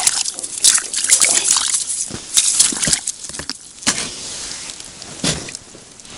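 Wet slush and meltwater splashing and sloshing around an ice hole as a freshly caught small pike thrashes and is handled, a run of irregular wet splashes and slaps, busiest in the first two seconds, then single splashes a few times after.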